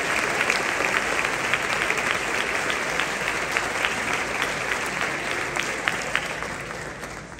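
Audience applauding, the clapping slowly dying away and fading out near the end.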